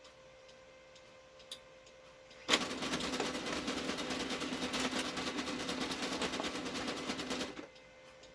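Brother HL-2240 laser printer's paper-feed drive starting suddenly and running for about five seconds with a dense, rapid clicking rattle over a steady hum, then stopping abruptly. The clicking comes from drive gears fouled with a sandy powder.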